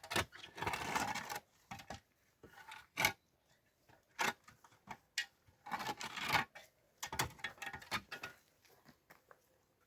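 Irregular knocks, scrapes and rubbing of objects being handled, with a few sharp clicks among them.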